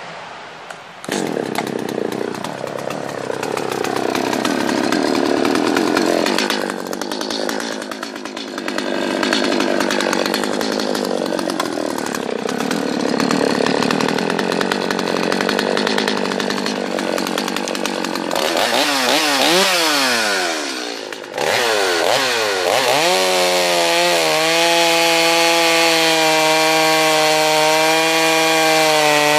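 Stihl 025C two-stroke chainsaw starting with a sudden burst about a second in and running at a wavering speed. It then revs up and down in several quick sweeps, drops back briefly, and settles to a steady note under load as the chain cuts through a log.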